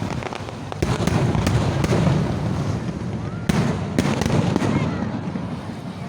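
Aerial fireworks bursting in quick succession: a dense run of sharp bangs and crackles over a rolling rumble, with the heaviest bangs about a second in and twice between three and a half and four seconds, easing off near the end.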